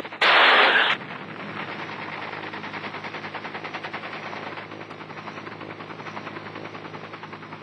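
Huey helicopter gunship in flight: a loud burst lasting under a second just after the start, then a rapid, even rattle over a steady low hum that slowly fades near the end.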